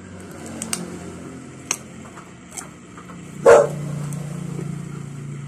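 A dog barks once, loudly, about three and a half seconds in, over a steady low hum. A few faint sharp clicks come before it, most likely from chewing the papaya.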